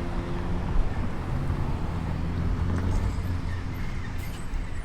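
Loaded dump truck's diesel engine running with a steady low drone as the truck comes in with a load of fill dirt.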